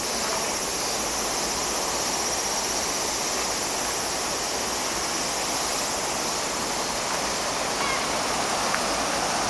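Steady rush of a mountain river flowing over rocks.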